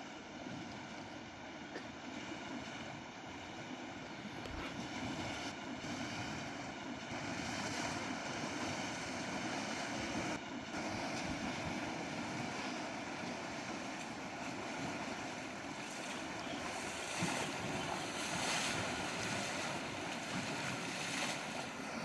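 Shallow river water rushing steadily.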